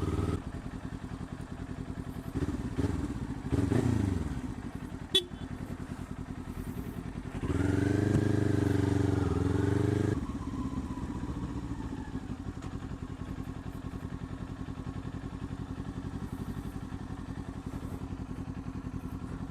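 Motorcycle engine running while being ridden, its pitch falling around three to four seconds in. It runs louder for a couple of seconds around the middle, with the pitch shifting up and down.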